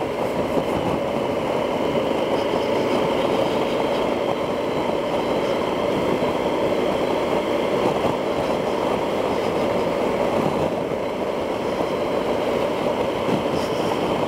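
Yamaha XT1200Z Super Tenere's 1200 cc parallel-twin engine running steadily at cruise, mixed with wind and road noise. It is heard through a microphone inside the rider's helmet.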